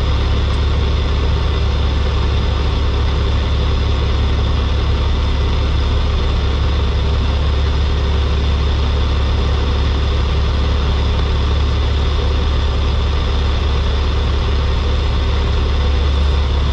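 Semi truck's diesel engine idling: a steady low drone, heard from inside the cab.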